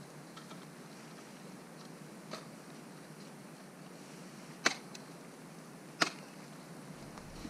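Ice-axe picks striking waterfall ice: a faint knock, then two sharp loud strikes a little over a second apart, over a low steady hiss.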